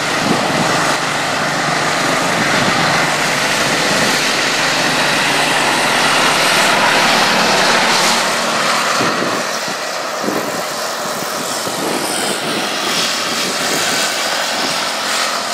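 Racing lawn tractor engines running at high revs as the tractors lap a dirt track, a steady drone that eases slightly about halfway through.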